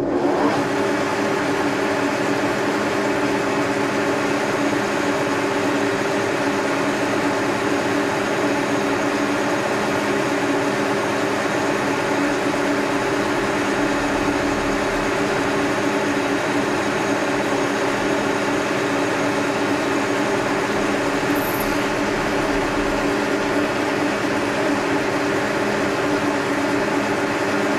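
Brown & Sharpe milling machine running steadily, its vertical head's spindle turning with a constant hum made of several steady low tones while a hole is drilled using the hand quill feed.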